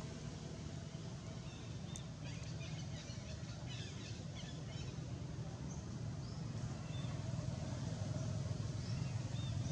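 Steady low rumble with many short high chirps and squeaks bunched together about two seconds in, then a few scattered ones toward the end.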